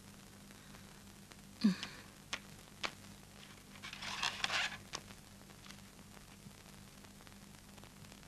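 Quiet pause over a steady low hum: a brief falling voice sound about a second and a half in, a few light clicks, and a breathy rustle, like a sigh, about four seconds in.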